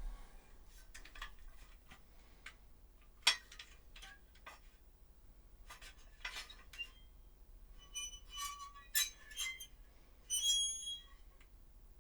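Old metal press worked by hand to make a metallic squeak: a few faint clicks and knocks, then short high squeaks about eight seconds in and a longer one a little after ten seconds.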